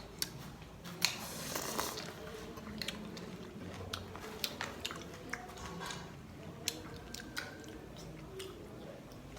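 Close-up biting and chewing of crunchy sour Marian plum fruit: wet crunches and irregular sharp clicks, loudest about a second in.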